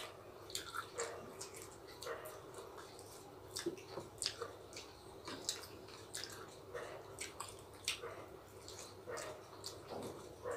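Faint, irregular wet mouth clicks and smacks of chewing chicken curry eaten by hand.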